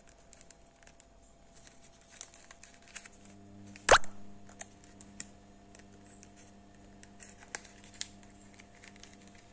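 Faint crinkling and small clicks of a printed paper Halloween glass sleeve being curled round in the hands and its tab worked into a notch, with one sharp snap about four seconds in.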